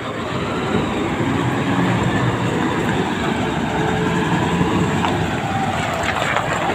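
Diesel engine of a large TCM FD250 container forklift running steadily as the machine drives with a shipping container raised.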